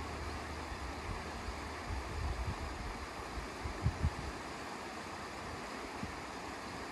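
Steady rush of sea surf with wind buffeting the microphone in low gusts, and two brief low thumps a little past halfway.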